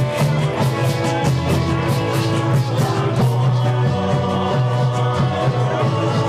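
A live band playing a song, with held melodic notes over a steady percussion beat.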